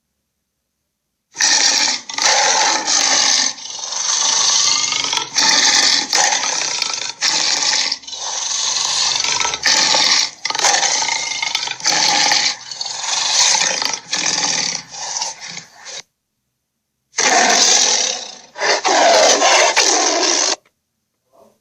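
A run of rough, growling dinosaur roar sound effects, one after another, broken by a few short silences.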